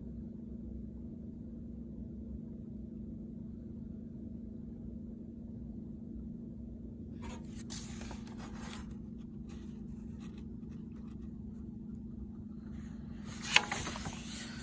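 A picture book's paper page rustling as fingers handle it about halfway through, then a sharp flick as the page is turned over near the end, over a steady low hum.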